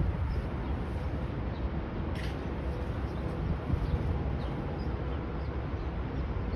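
Outdoor city ambience from high up: a steady low rumble of distant traffic and wind, with a few faint short high chirps and a brief click about two seconds in.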